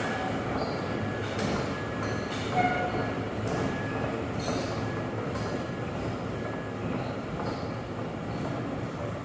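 Vehicle in motion: a steady rumbling running noise with scattered clanks and brief metallic squeaks.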